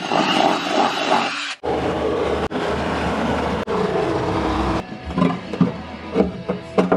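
Power tools cutting a round hole through epoxy-coated plywood: a drill boring a starter hole, then a jigsaw sawing steadily around the marked circle. The sawing turns uneven, in short spurts, in the last two seconds.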